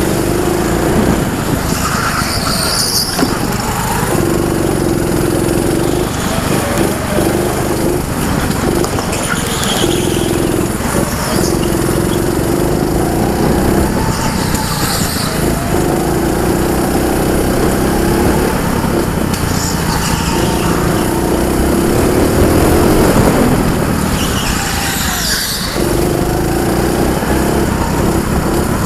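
Go-kart engine heard from the driver's seat, its drone rising and dropping every few seconds as the throttle comes on and off through the corners. Short high-pitched tyre squeals come several times.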